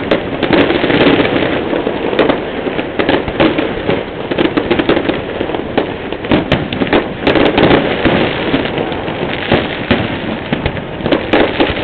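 Fireworks display: a dense, continuous run of bangs and crackling, with many sharp cracks overlapping throughout.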